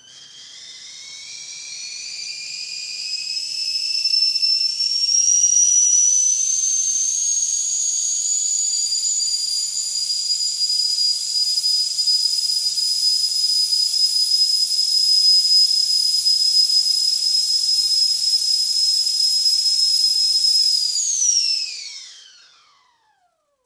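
Whistling kettle coming to the boil: its whistle rises in pitch and loudness over the first several seconds, then holds a steady high note over hissing steam. Near the end the whistle slides down in pitch and fades out.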